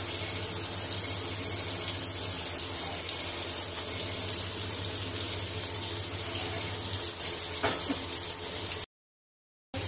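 Kofta balls shallow-frying in hot oil in a pan: a steady sizzle, with a low hum underneath. The sound cuts out for under a second near the end.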